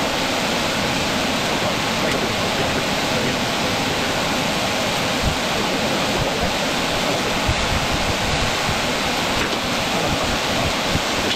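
Large shop fan running, a steady, even rush of air.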